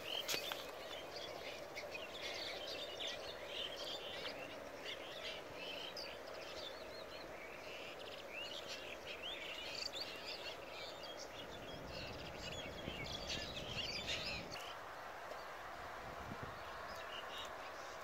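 Many small birds chirping and calling over a steady background hiss. The birdsong breaks off abruptly about fourteen seconds in.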